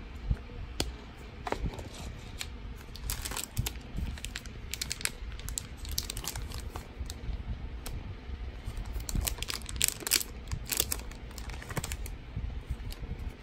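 Clear plastic packaging of a highlighter set crinkling as it is handled, in crackly bursts about three to five seconds in and again around nine to eleven seconds in.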